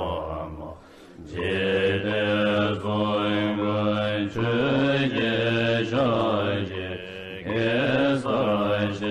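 Buddhist mantra chanted by a voice in long melodic phrases as background music, with a short break about a second in.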